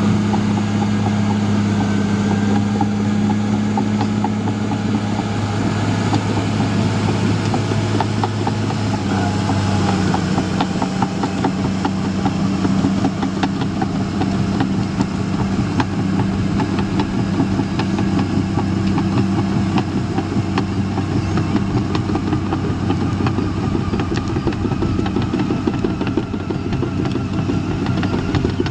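Caterpillar D5N LGP crawler dozer's diesel engine running steadily, its pitch dropping slightly about nine seconds in, with a rapid clatter of clicks from then on.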